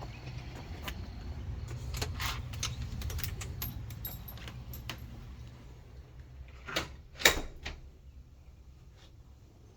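A house door being opened and shut: a run of small clicks and rattles, then two sharp knocks about seven seconds in, the second the louder.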